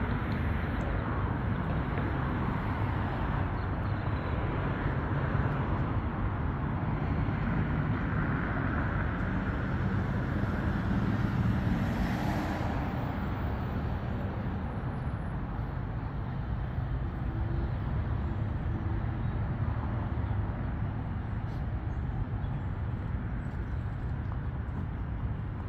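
City street traffic: a steady rush of cars driving past, with one passing car swelling louder about halfway through.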